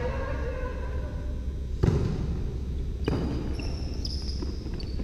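A volleyball being struck twice, two sharp smacks about a second and a quarter apart, the first the louder, echoing in a large gym hall.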